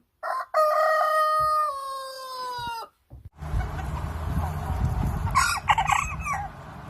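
A rooster crows once, a long held call that drops slightly in pitch at its end. A low rumbling noise follows, with a few short clucks partway through.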